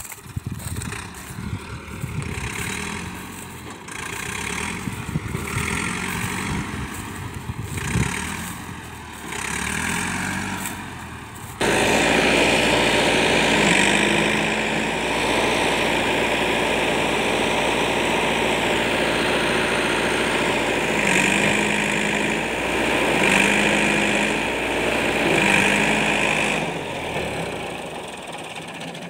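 Tractor diesel engine running, fainter and uneven at first, then loud and close after about eleven seconds. Here it revs up and settles back four times as the tractor, bogged in mud, is worked to get free, before dropping back near the end.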